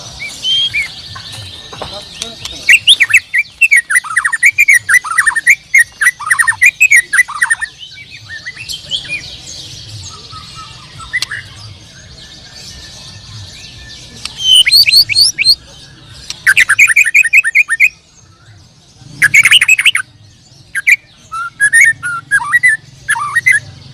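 White-rumped shama (murai batu) song: loud bursts of quick, repeated notes that fall in pitch, broken by short pauses between phrases. A faint low steady hum runs underneath.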